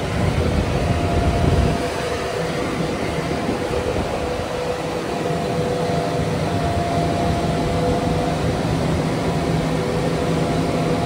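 Steady running of airport ground equipment: the ground air-conditioning unit blowing cool air through its hose into the aircraft, with a steady whine and low hum. A heavier rumble comes in the first couple of seconds.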